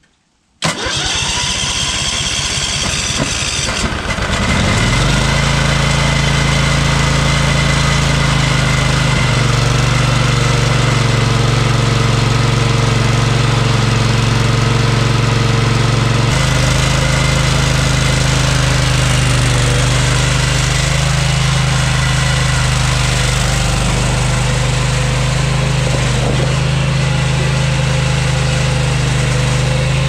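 Vanguard V-twin engine of a skid steer cranked by its starter for about four seconds, then catching and running steadily. It starts with the new ignition coil and kill wire fitted.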